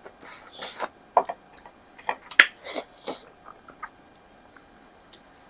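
Close-up eating sounds: chewing, wet mouth noises and quick breaths through the teeth from spicy food, with a few sharp clicks, busiest in the first three seconds and then dying down to faint ticks.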